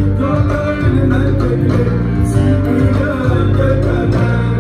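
A Tuareg desert-blues band playing live: electric guitars over a steady bass, with a man singing. Loud and continuous, heard from within the audience.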